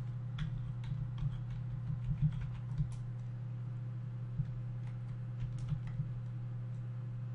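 Computer keyboard being typed on in irregular runs of keystrokes, busiest in the first few seconds and sparser afterwards, over a steady low hum. The typing is most likely network settings being entered by hand at an installer prompt.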